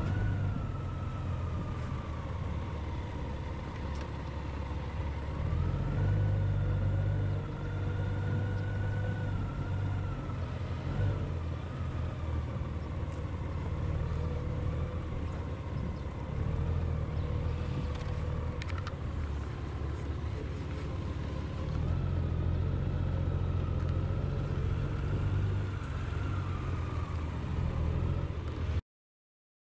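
Vehicle engine running on the move, its pitch drifting slowly up and down, over a steady low rumble of road and wind noise; it cuts off suddenly near the end.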